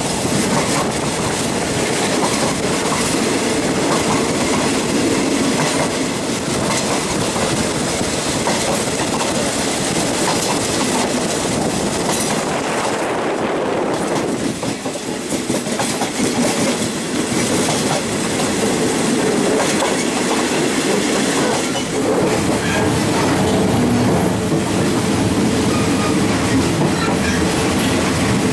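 Passenger train running along the track, heard from a carriage with its windows open: a steady rumble and clatter of steel wheels on the rails. The noise briefly drops about halfway through, then carries on.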